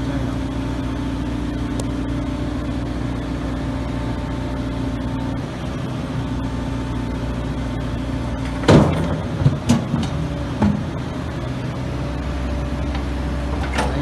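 An engine runs steadily while a dump truck's steel bed is loaded. About nine seconds in, a load drops into the bed with a few loud clanks and thuds over two seconds, and one more clank comes near the end.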